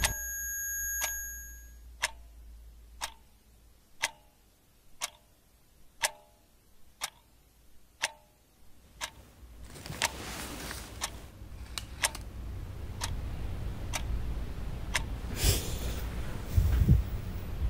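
A clock ticking steadily, one tick a second, with a brief high tone at the very start and a louder rustle near the end.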